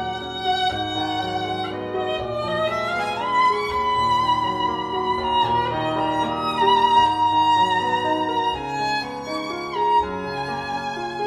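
Violin playing a lyrical melody with vibrato over a sustained accompaniment; about three seconds in it slides upward into a long held high note.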